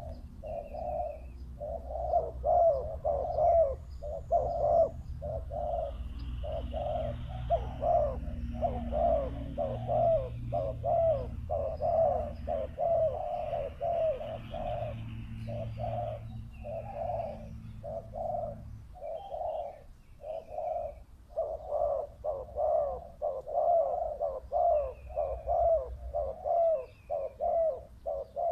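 Spotted doves cooing, a steady run of short repeated coos, with faint chirps from smaller birds. A low rumble sits underneath and stops about two-thirds of the way through.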